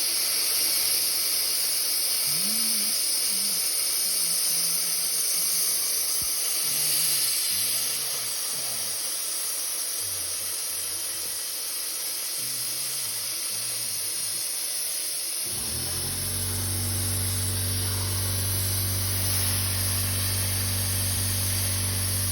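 CNC plasma cutter cutting 16-gauge sheet metal: a steady, loud hiss of the plasma torch. About fifteen seconds in, a steady low hum joins it.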